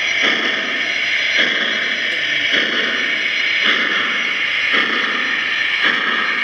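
Lionel Vision Line O gauge GS-4 model steam locomotive's onboard sound system playing slow steam chuffing as the engine creeps forward: a steady hiss that pulses about once a second, mixed with the running noise of the model on its track.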